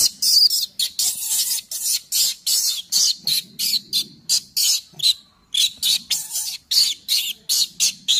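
Baby macaque screaming in a rapid string of short, high-pitched cries, about three a second: distress crying.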